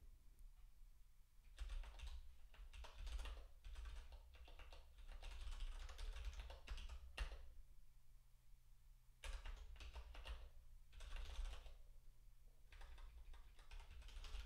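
Faint typing on a computer keyboard: several bursts of rapid key clicks with short pauses between them.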